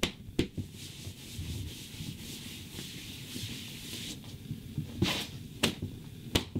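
A hand rubbing across a bedspread, a steady brushing hiss for a few seconds, with a few sharp taps at the start and near the end.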